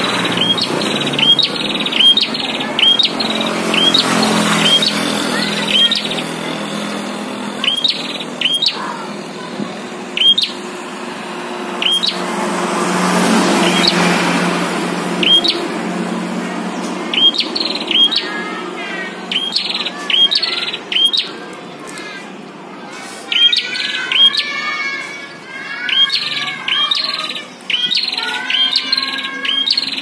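Prinias (prenjak) calling back and forth, a caged bird answering a wild one in a territorial call duel: sharp, high chirps repeated in quick runs, sparser in the middle, with softer warbling chirps joining in the second half.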